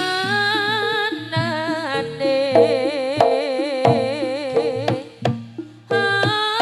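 Live jaranan gamelan music: drum strokes under a lead melody with wide vibrato. It drops back briefly about five seconds in, then comes back in.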